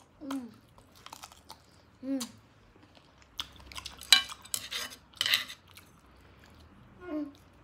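Eating sounds: chewing, with chopsticks clicking and scraping against a nonstick frying pan, strongest in a run of sharp clicks in the middle. A few short hums from the eaters come in between.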